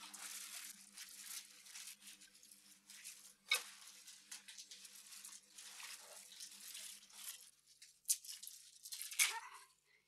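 Small campfire crackling and hissing, with a few sharp pops, the loudest about three and a half seconds in and near the end.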